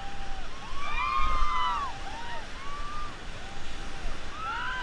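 River water rushing under several voices calling out at once in high, rising-and-falling shouts.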